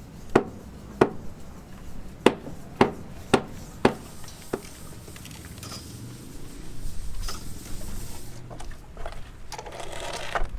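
A series of sharp knocks, seven in about five seconds, then a rougher, noisier stretch.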